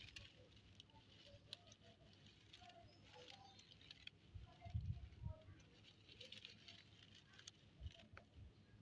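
Faint scattered taps and scratchy pattering of kittens' paws at play, with a few soft low thumps about four and a half to five seconds in.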